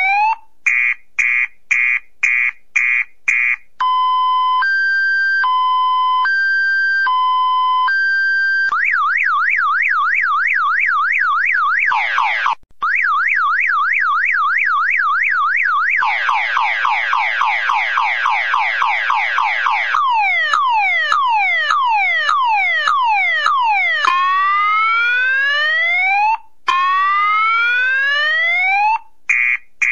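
Car alarm siren cycling through its tone patterns: a run of short rapid beeps, a two-tone high-low, a fast warble, a quick string of falling chirps, slower falling sweeps, then long rising whoops, with the rapid beeps starting again at the very end.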